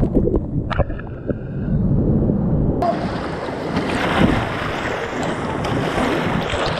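Whitewater rushing around a kayak running a creek drop. For the first few seconds it is dull and muffled with the camera in the water, with a sharp knock and short ring just under a second in. About three seconds in it suddenly opens out into bright, loud rushing rapids.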